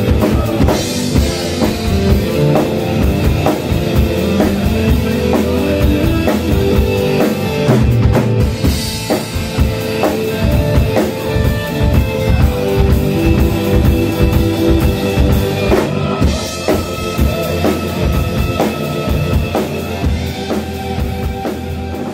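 Live rock band playing: a drum kit keeping a steady beat with bass drum and snare, cymbal crashes a second in, at about eight seconds and at about sixteen seconds, over amplified electric guitar.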